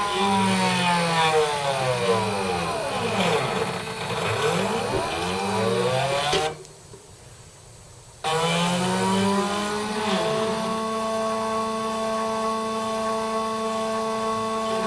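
Stepper motors of a homemade CNC engraving machine whining as they drive the axes, the pitch gliding up and down as the moves speed up and slow down, over a steady hum. The motion stops for about two seconds in the middle, then starts again.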